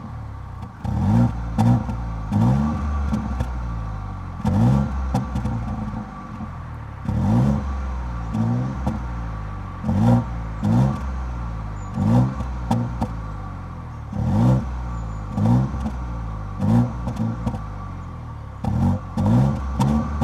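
A 2018 Mini Cooper's 1.5-litre three-cylinder engine being blipped through its stock exhaust, short revs about once a second, each rising and falling back to idle. Sharp pops and crackles come from the exhaust as the revs drop.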